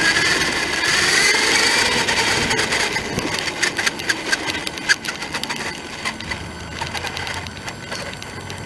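RC car motor whining and rising in pitch as the car speeds up, then fading. About three seconds in, a run of sharp clicks and crackles follows.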